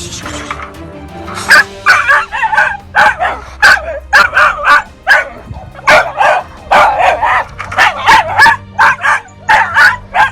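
West Siberian laika barking in a rapid run of short barks, about two a second, starting a second and a half in.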